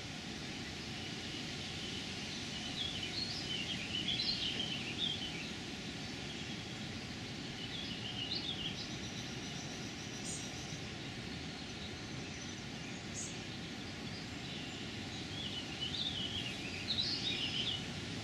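Red-winged blackbird nestlings begging for food with clusters of thin, quick, high chirps, three times, over a steady low background rumble.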